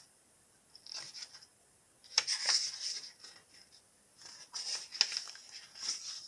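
Pages of a paperback book being leafed through and turned: several short papery rustles, the longest about two seconds in.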